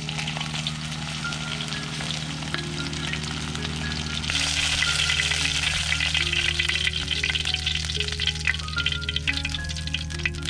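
Food frying in hot oil in an earthenware pan, a steady sizzle stirred with a wooden spatula; the sizzling grows louder about four seconds in.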